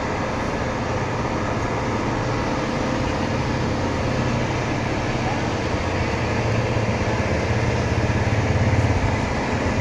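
Outdoor street-market background noise: a steady low rumble that swells near the end.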